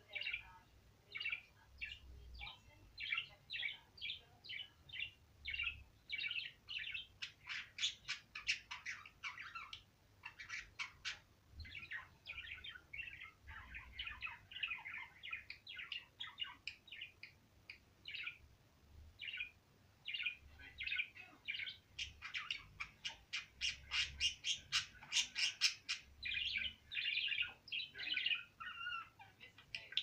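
Female budgerigar singing: a long run of short chirps, clicks and warbling notes, breaking twice into fast chattering runs, around 8 seconds in and again from about 22 to 26 seconds.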